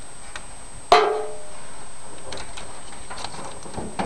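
A single sharp metallic clank about a second in, ringing briefly, followed by a few light clicks.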